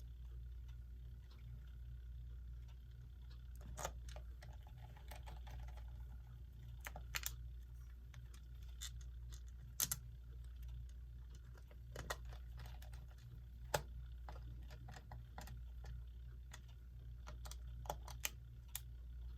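Scattered small clicks and taps of a screwdriver and small screws as a quartz clock movement is screwed back into its case, irregular and a few seconds apart, over a steady low hum.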